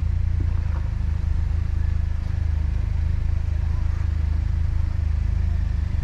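Jeep Wrangler engine running at low, steady revs, a deep even drone while the Jeep crawls along the trail.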